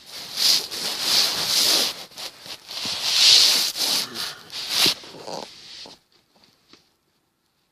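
Irregular rustling and scraping noise in loud uneven bursts, which stops abruptly about six seconds in.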